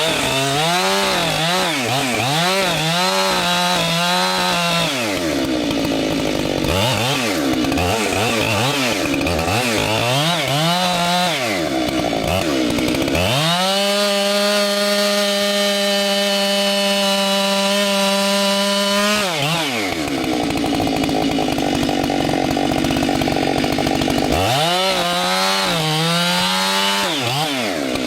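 Chainsaw cutting wood, its engine speed swinging up and down again and again, with a long steady full-throttle stretch about halfway through. In the gaps between cuts the engine runs lower.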